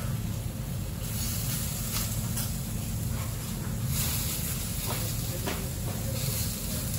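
Meat and vegetables sizzling in oil in a shallow brass pot over a tabletop gas burner: a steady frying hiss with scattered small pops, over a constant low hum.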